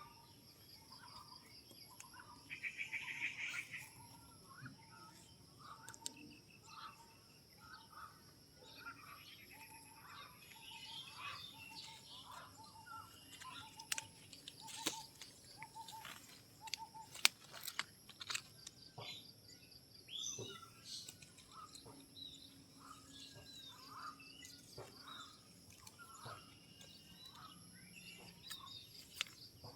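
Forest ambience: birds chirping over and over against a steady, high insect drone, with a few sharp clicks in the middle.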